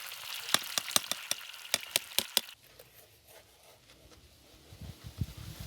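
Food frying with a sizzling hiss, with a quick run of about nine sharp clicks, then the sizzle cuts off abruptly about two and a half seconds in. A few low thumps near the end.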